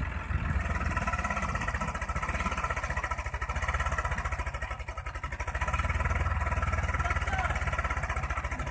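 Farm tractor's diesel engine running under load as the tractor, stuck in the wet mud of a paddy field, spins its rear wheels trying to drive out. The engine note dips about halfway through, then picks up again.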